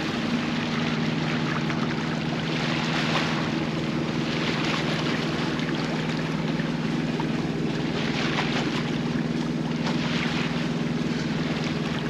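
Sailboat's inboard engine running at a steady speed, a constant low drone, under a rushing hiss that swells and fades every couple of seconds.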